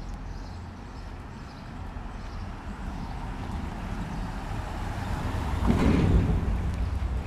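A motor vehicle approaching and passing on the street, its engine and tyre noise building to a peak about six seconds in and then easing off over a steady low traffic rumble.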